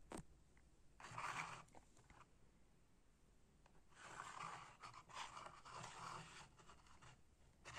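Faint rustling and handling noise in a quiet room: a short stretch about a second in and a longer one from about four seconds in, with a light click at the very start.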